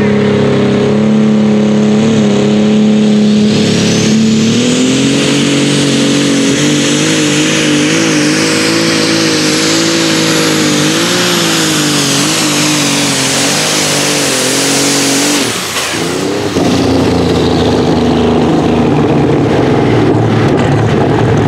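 Super stock pulling tractor's engine, a John Deere 7280, running at full throttle under the load of the sled: a steady note at first, then about four seconds in the pitch lifts and wavers with load and a high turbo whistle climbs and holds. The sound cuts off suddenly about two-thirds of the way through, and a rougher engine noise follows.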